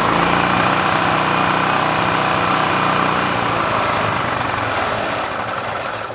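Generac portable generator's small engine running steadily, its first run in nine years after a carburetor clean-out. It eases off near the end as it is shut down.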